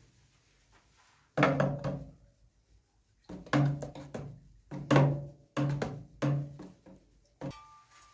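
About seven hollow knocks at uneven intervals, each with a short low ring, loud against a quiet background.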